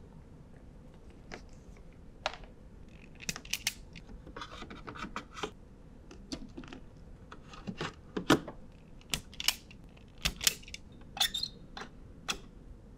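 Irregular clicks, snips and scratches of hand wiring work: wire strippers cutting and stripping a cable, then the wire ends being worked into the terminals of a plastic circuit breaker.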